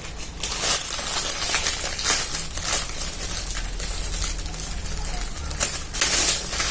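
Crackers being handled, a continuous crinkling and rustling with many small crackly snaps.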